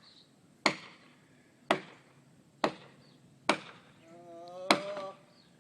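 Felling wedge being driven into an oak's back cut, struck hard five times at about one blow a second. A short pitched sound, drawn out like a creak or groan, is heard along with the last blow.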